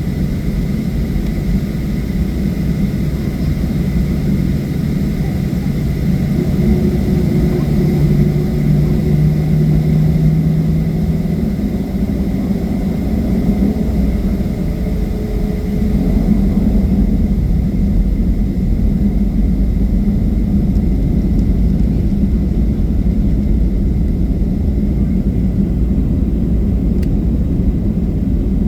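Boeing 737-700's CFM56 jet engines and a heavy low rumble during takeoff. Engine tones rise in pitch through the middle of the stretch, and the sound steps up louder about two-thirds of the way in.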